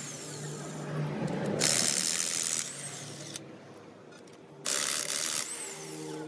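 Electric impact wrench running in two short bursts, about a second long each, on the ring gear bolts of a truck differential carrier. The first burst comes about one and a half seconds in and the second just before the end.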